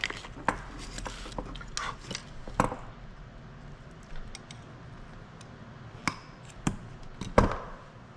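Wire cutters snipping through old harness wires, with handling clicks from the wires and connector: a string of sharp separate clicks and snaps, the loudest about seven and a half seconds in.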